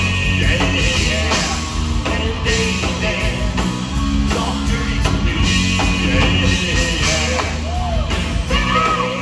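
Live rock band playing loud and steady: drum kit, electric guitars and bass, with singing over it at times.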